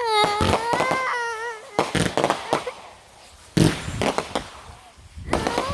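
A 25-shot fireworks cake firing its finale: a run of sharp bangs, the loudest about three and a half seconds in. Over the first second and a half, and again at the end, a held, wavering high-pitched tone.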